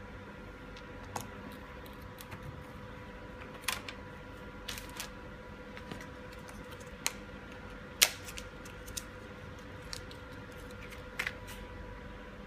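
Scattered small clicks and taps of a laptop's plastic and metal parts being handled during disassembly, about ten in all, the sharpest about eight seconds in, over a steady faint hum.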